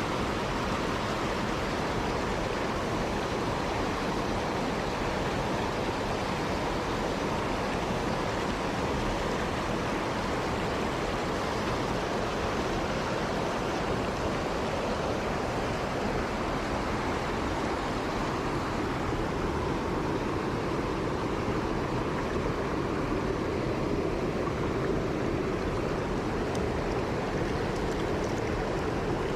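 Mountain stream water rushing, a steady even rush with no breaks.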